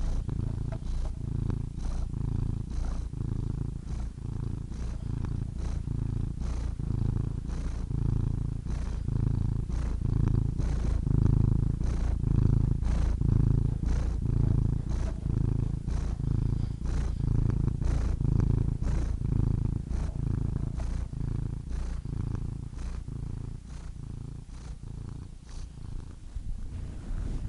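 Domestic cat purring: a low continuous rumble that swells and eases with each breath, about once a second, a little softer near the end.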